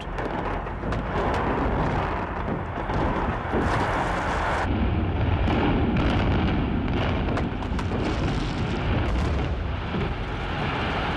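A 31-storey reinforced-concrete tower collapsing in an implosion: a continuous heavy rumble of crashing concrete with sharp cracks scattered through it.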